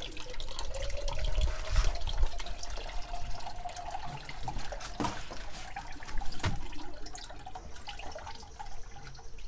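Coolant running and dripping out of a car radiator as it is pulled out of the engine bay, with a faint tone that slowly rises. Two sharp knocks about five and six and a half seconds in.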